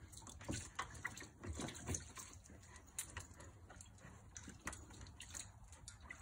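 Beagle splashing and sloshing about in the shallow water of a plastic paddling pool: small irregular splashes and drips, busiest in the first two seconds.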